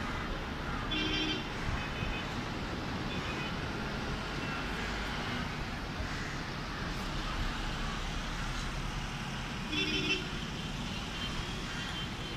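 Road traffic with a steady wash of noise, pierced by short vehicle horn toots about a second in and again near ten seconds.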